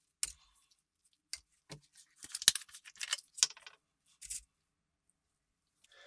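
Small metal parts clicking and clinking against each other and a hard surface, in a run of sharp taps that is busiest a little past the middle.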